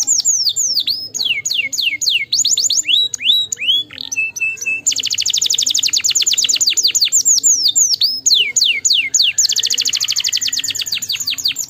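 Domestic canary singing: fast rolling trills of rapidly repeated notes, alternating with sweeping falling whistles and a short steady note.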